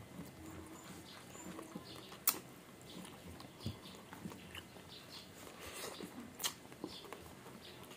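Close-up eating sounds of people eating rice and pork by hand: soft chewing, lip smacks and fingers working rice, with scattered sharp clicks, the loudest about two seconds in.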